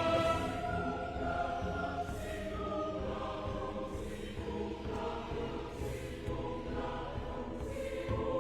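Background music with choral singing: sustained, slowly shifting chords.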